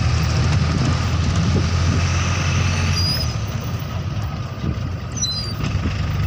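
Moving road vehicle heard from inside through an open window: steady engine and road rumble with rushing air and tyre noise. The deep engine note drops away about three seconds in and the sound eases a little.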